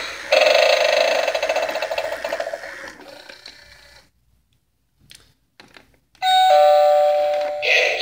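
A knockoff Gemmy animated eyeball doorbell, a Halloween prop, playing its doorbell sound through its small built-in speaker. A wavering chime starts suddenly and fades out over about three seconds, followed by a second of quiet with a couple of faint clicks. Then a new sound with steady tones starts sharply about six seconds in. The audio is the same as on the genuine Gemmy item.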